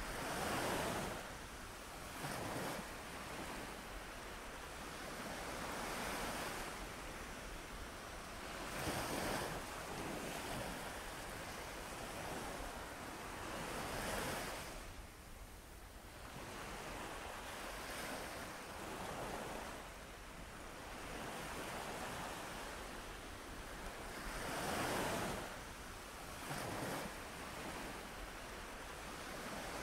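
Ocean waves breaking and washing onto a beach, each wave swelling and fading every few seconds.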